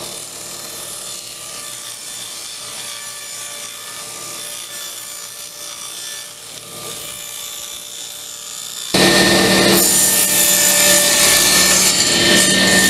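Table saw running and ripping a long sheet of beadboard plywood, the blade cutting steadily through the wood. The sound becomes markedly louder about nine seconds in.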